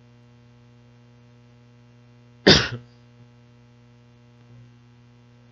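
One short cough about two and a half seconds in, over a steady electrical mains hum.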